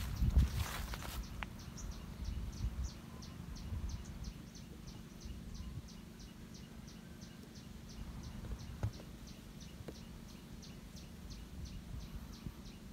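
A small animal repeating a short high chirp, about three times a second, over a low rumble. A brief rustling noise in the first second.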